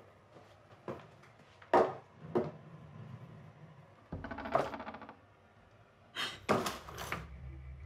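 A series of irregular sharp knocks and clicks, about half a dozen, with a low steady drone coming in about four seconds in.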